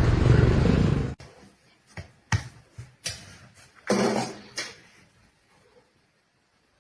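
A loud, dense noise cuts off abruptly about a second in, followed by a handful of scattered short knocks and clicks in a small room, the loudest near the middle.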